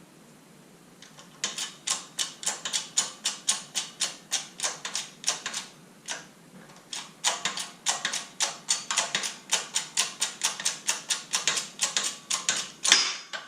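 Rapid, even run of sharp metallic clicks, about three to four a second, stopping for about a second midway and then starting again, from a tool being worked while a seized linkage bearing is pressed out in a shop press.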